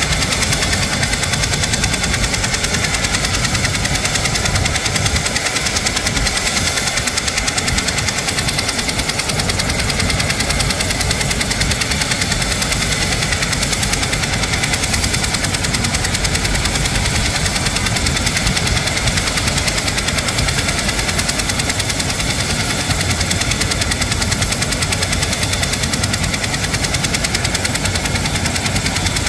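Military helicopter running steadily with its main rotor turning: a continuous turbine-and-rotor noise with a fast, even pulse.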